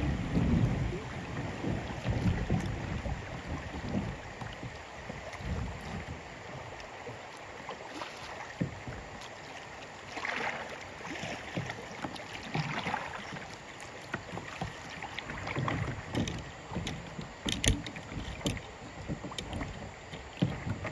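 Water moving and splashing around a kayak on a river, with scattered light knocks. Wind rumbles on the microphone, strongest near the start.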